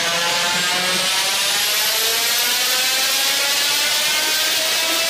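Mitsubishi 4G63T turbocharged 2.0-litre inline-four engine pulling under load, its pitch rising slowly as it accelerates. A thin high whine climbs over the first couple of seconds.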